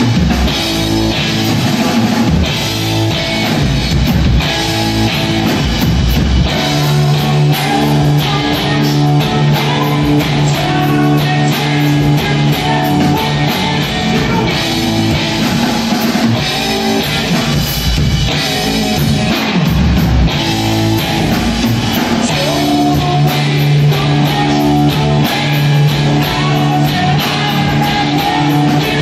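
Rock band playing live without vocals: amplified electric guitars with a drum kit keeping a steady beat.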